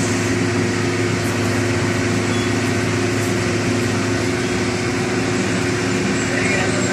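A steady engine hum, like an engine running at idle.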